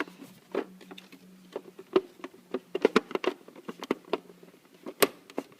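Irregular plastic clicks and knocks as the cover panels of a coffee machine are handled and worked loose after unscrewing, over a faint steady low hum that stops near the end.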